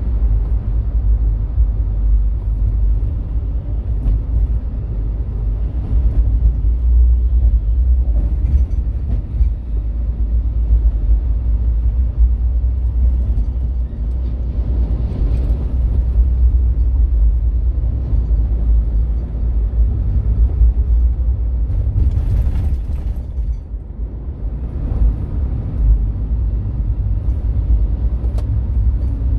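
Steady low rumble of a car driving on a highway, road and engine noise heard from inside the cabin. A short hiss comes about three quarters of the way through, followed by a brief lull.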